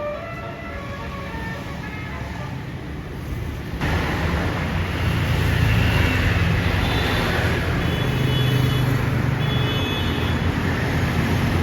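Street traffic with a bus's engine rumbling. The last notes of a multi-tone basuri horn melody fade out in the first second. About four seconds in the sound jumps louder to a deep engine rumble and road noise.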